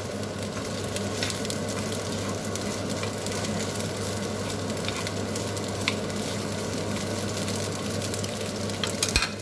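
Macaroni with minced meat and carrots sizzling in a frying pan while being stirred with a wooden spatula: a steady frying hiss with fine crackles over a steady low hum, and a few sharp clicks near the end.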